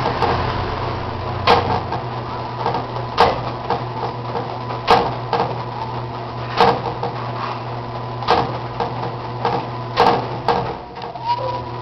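Enxuta washing machine running a wash cycle, its first after standing unused for seven and a half years: a steady motor hum with a sharp knock repeating roughly every second and three-quarters and lighter clicks between. The running dips briefly near the end.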